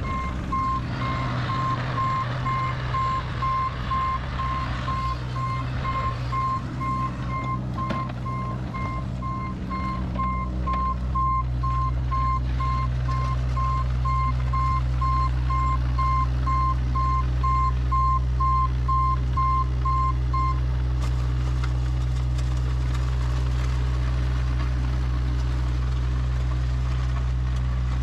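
Cat 303E mini excavator's travel alarm beeping repeatedly while the machine tracks along a gravel drive, over the steady running of its diesel engine. The beeping stops about twenty seconds in, and the engine keeps running.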